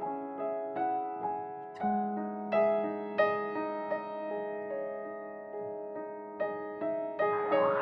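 Background music: a gentle piano melody of single struck notes ringing over held bass notes.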